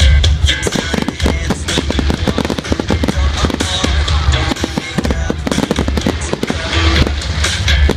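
Display fireworks going off in a dense run of bangs and crackles, many in quick succession, over music with a steady bass.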